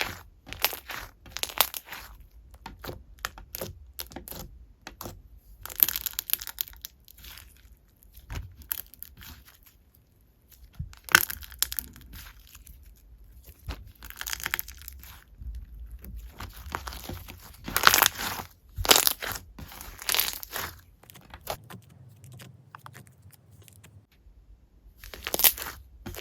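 Slime being squished and pressed by hand, giving irregular bouts of sticky crackling and popping, with short pauses between bouts.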